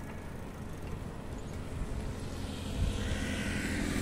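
Wind rumbling on the microphone and road noise while riding a bicycle along a paved road. In the last second or so a motorcycle engine grows louder as it approaches.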